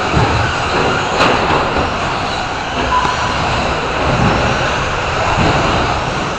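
Several Traxxas Slash short-course RC trucks racing: a steady din of motors and tyres on the track. A sharp knock comes about a second in and a short beep about three seconds in.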